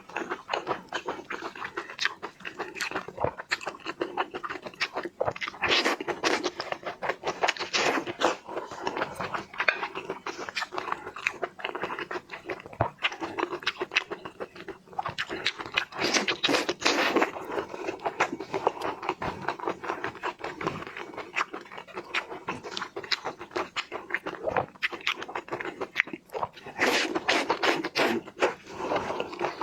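Close-miked chewing and crunching of seafood, with wet mouth clicks and smacking, growing louder in a few stretches.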